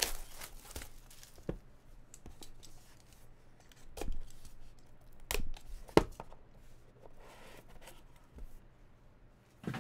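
Plastic shrink wrap being slit and torn off a cardboard card box, with crinkling, then a few sharp knocks and taps as the box is handled, the loudest about six seconds in.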